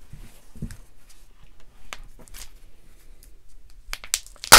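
Faint rustling and handling of paper and a plastic Kinder Joy egg, with a few small clicks, then one sharp crack near the end as the egg is pulled open.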